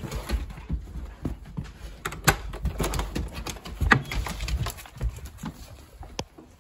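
Hurried footsteps and a dog's claws clattering on hard floors as a dog and a person run through a house and out a doorway, with knocks and rubbing from a handheld phone; two louder knocks about two and four seconds in.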